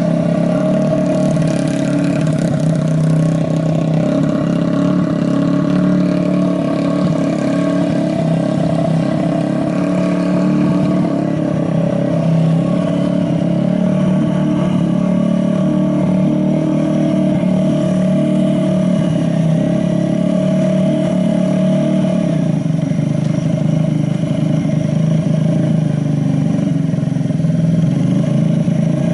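Honda Ape 50's air-cooled single-cylinder four-stroke engine, bored up to 80cc with a big carburettor and high-lift cam, running steadily at a constant speed. The seller presents it as running without abnormal noise.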